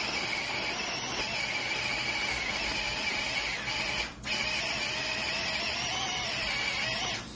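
Cordless USB mini food processor running, its small motor giving a steady whine as the blades chop peeled garlic. The motor stops for a moment about four seconds in, starts again, and cuts off near the end.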